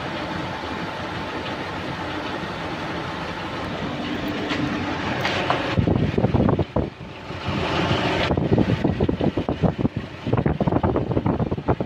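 A vehicle engine running with a steady hum. From about six seconds in, loud irregular rustling and knocking of the phone being handled right at the microphone covers it.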